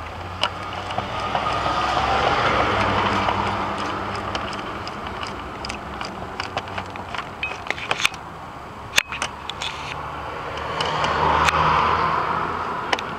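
Two vehicles pass by in turn, each swelling and fading over a few seconds, the first peaking about two seconds in and the second near the end. Scattered light clicks and taps of a screwdriver on the screws of a plastic air filter box.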